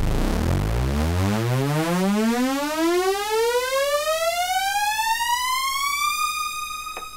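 Sylenth1 synthesizer playing a sustained string-preset note whose pitch sweeps steadily upward from a deep rumble to a high tone over about six seconds, then levels off and fades. It opens with a brief gritty noise. This is a build-up pitch-rise effect driven by a modulation envelope on the oscillators' pitch.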